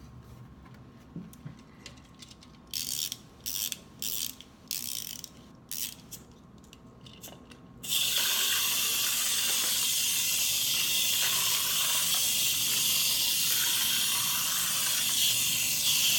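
Small clockwork wind-up toy from an Usborne wind-up book: its key is turned in several short ratcheting twists, then about eight seconds in its spring motor is released and whirs steadily as the toy runs along the track.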